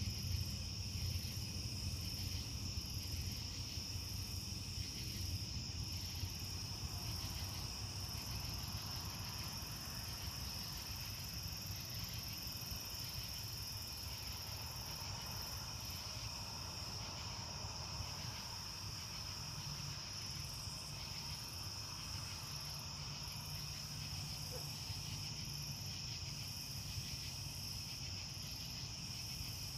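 Crickets chirping in a steady, high-pitched night chorus, with a low rumble underneath.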